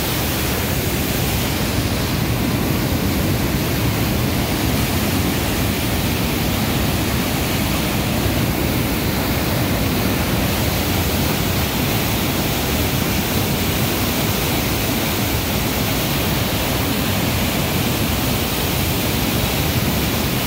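Water spilling over a low dam weir and churning in the river below: a steady rushing sound.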